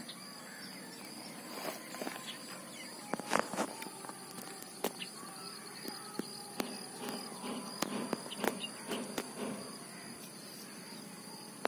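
Outdoor ambience: a steady high insect drone, with scattered light clicks and rustles and a few faint chirps.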